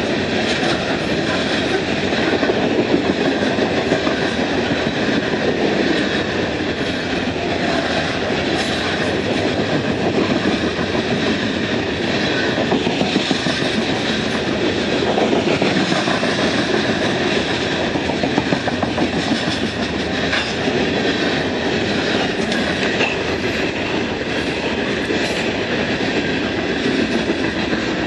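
Coal train's hopper cars rolling past: a steady rumble and clacking of steel wheels on the rails that does not let up.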